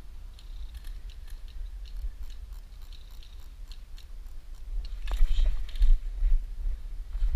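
Wind rumbling on the microphone, with scattered light clicks. From about five seconds in come louder crunching and rustling sounds of movement.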